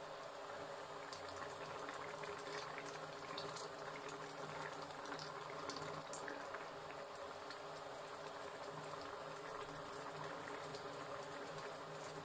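Thick tamarind fish curry gravy bubbling at a boil in a metal kadai: a steady bubbling with scattered small pops.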